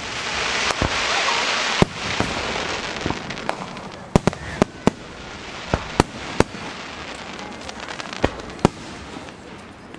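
Aerial firework shells bursting: a loud crackling hiss for about the first two seconds, then more than a dozen sharp bangs at irregular spacing.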